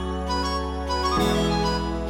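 Background music: sustained melodic instrumental chords, changing to a new chord about a second in.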